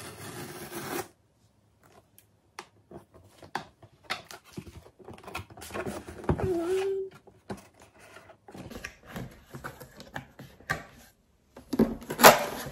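Cardboard shipping box being opened by hand: its tear strip rips along the top for about the first second, then the flaps rustle and scrape in short bursts. Near the end a packaged laptop box slides out against the cardboard, the loudest scrape.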